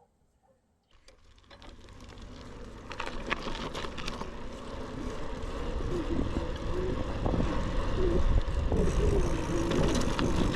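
Bicycle ride heard through a GoPro's dead-cat-covered microphones: after about a second of near silence, wind and rolling noise build steadily as the bike picks up speed, with scattered clicks and rattles.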